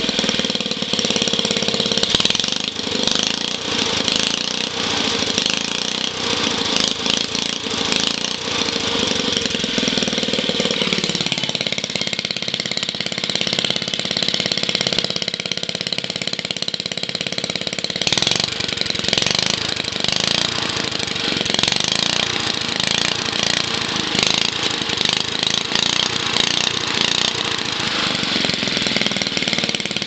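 Old Briggs & Stratton single-cylinder washing-machine engine running steadily. Its note drops in pitch about eleven seconds in and shifts again a little past the middle.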